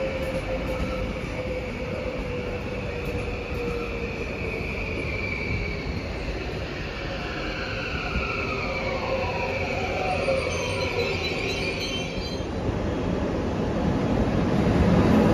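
Multiple-unit passenger train running past and away with a steady rumble and high whining tones that slide down in pitch. Near the end a second train comes closer, and its rumble grows louder.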